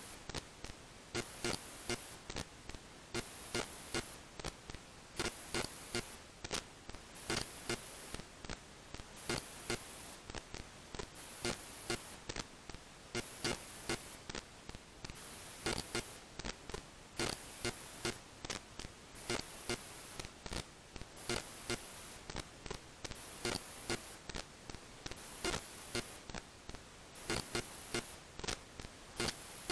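Background electronic music with a steady, evenly repeating beat.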